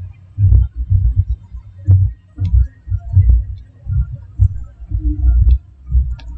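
Irregular low thumps, several a second, from a stylus writing strokes on a tablet.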